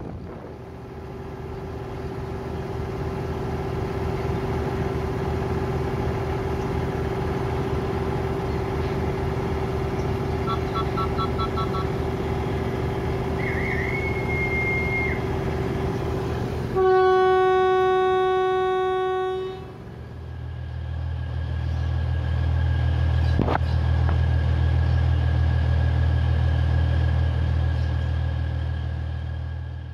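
Batara Kresna diesel railbus running with a steady drone and low rumble, with a few short beeps about ten seconds in and a whistle blast around fourteen seconds. Then the railbus horn sounds loudly for about three seconds, followed by a heavier low engine rumble.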